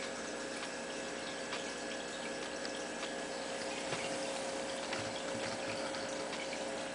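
Aquarium pump running, with water trickling and bubbling steadily over a faint steady hum and a few light ticks.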